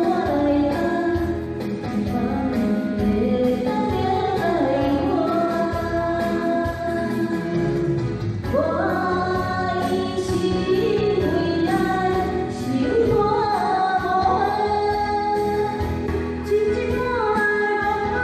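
Female voices singing a Taiwanese Hokkien song over an instrumental accompaniment, the melody gliding between long held notes.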